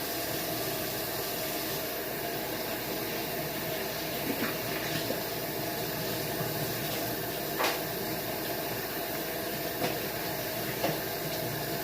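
Kitchen tap running steadily into the sink as hands are washed under it, with a few light clicks.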